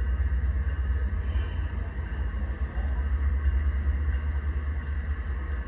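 Freight train rolling past: a steady deep rumble.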